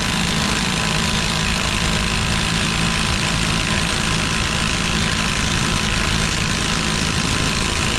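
AOBEN 1/2-inch brushless cordless impact wrench running in reverse, hammering steadily and without let-up on a bolt that does not break loose: the bolt was driven in too tight for it to remove.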